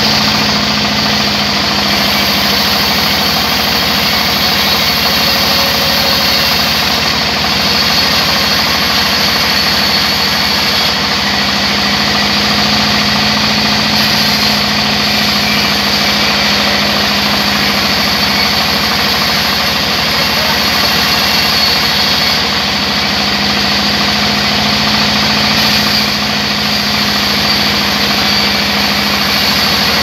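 Sawmill band saw running steadily while a slab of log is pushed through its blade: a loud, continuous machine sound.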